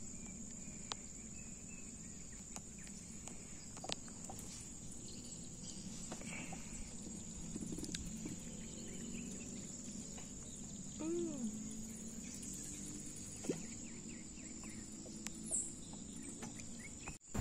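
Steady, high-pitched insect drone, with a few faint clicks and one short call about eleven seconds in.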